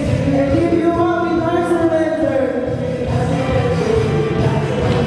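Congregation and choir singing a worship song with musical accompaniment.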